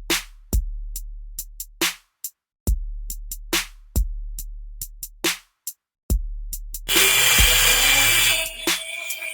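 Electronic background music: a drum-machine beat of sharp hits over long, deep booming bass notes, with a dense hiss-like layer coming in about seven seconds in.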